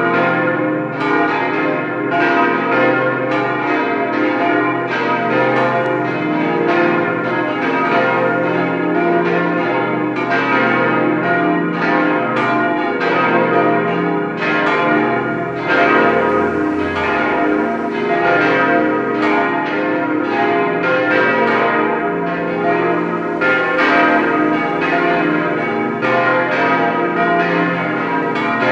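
Full peal of the five 1954 cast-steel church bells from Bochumer Verein, tuned B♭, C, E♭, F and A♭, swinging and striking over and over. The strikes overlap in a steady, unbroken run, each one leaving a long ring under the next.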